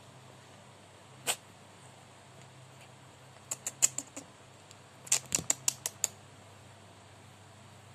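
Sharp clicks: a single one, then a quick run of about five and another of about seven, each run lasting under a second.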